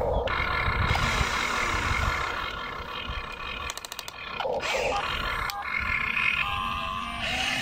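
Radio-controlled excavator's electric motors and gearing whining steadily as the arm swings and the bucket works over a toy dump truck loaded with rocks, with a few sharp clicks between about three and a half and five and a half seconds in.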